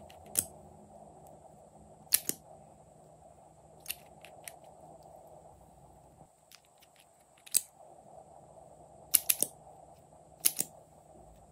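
Sharp plastic clicks of small lip gloss tubes and their caps being handled and pulled open, about eight or nine clicks with several in quick pairs.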